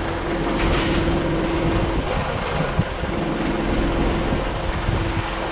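Forklift engine running steadily while it works beside the trailer, with a single sharp knock a little under three seconds in.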